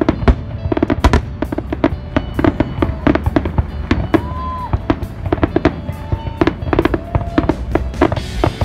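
Aerial firework shells bursting in quick, irregular succession: a dense run of bangs and crackles, several a second, over a low rumble.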